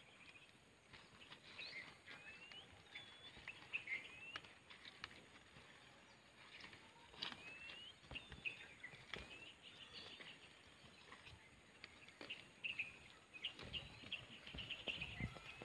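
Birds chirping and calling in short rising and falling notes, faintly, with scattered soft clicks and rustles from leafy vegetable plants being pulled and handled.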